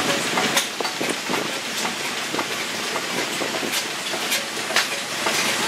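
Large vertical stationary engine with spoked flywheels running, a steady mechanical clatter with irregular sharper knocks.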